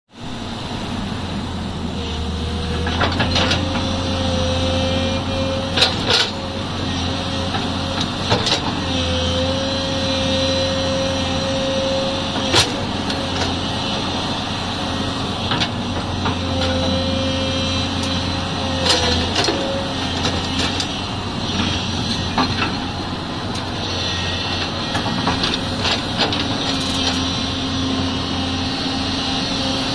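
Tata Hitachi excavator running with a steady low engine drone; a higher whine rises in and holds for a few seconds at a time as the machine works, with occasional sharp knocks and clanks.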